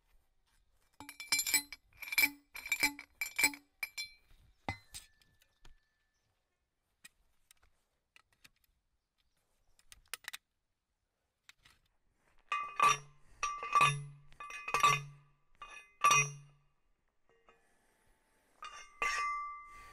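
Hand post driver hammering a steel stake into the ground: five quick ringing metal clanks about a second in, then after a pause four slower clanks, spaced about a second apart, that ring at a lower pitch.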